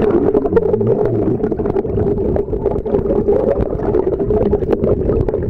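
Rushing stream water heard with the camera submerged: a muffled, steady rumble and hum, with many small clicks and ticks from bubbles and current around the rocks.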